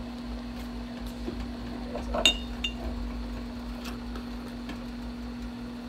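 Spice containers clinking as they are handled over a pan: one sharp clink with a brief ring a little over two seconds in, a smaller clink just after, and a few faint ticks. A low steady hum runs underneath.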